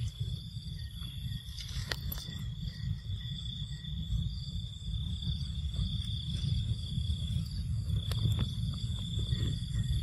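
Outdoor ambience: a steady low rumble of wind on the microphone, under a steady high-pitched insect drone, with a couple of faint clicks about two seconds in and near the end.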